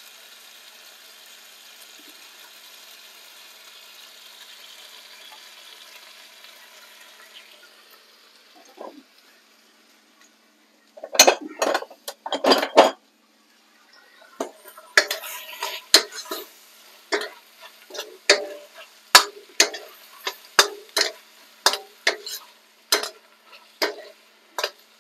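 Stir fry sizzling softly in a steel wok, dying away over the first several seconds. Then a metal wok ladle clanks and scrapes against the wok, first a brief clatter and then a steady rhythm of about two strokes a second as the food is stirred and tossed in the sauce.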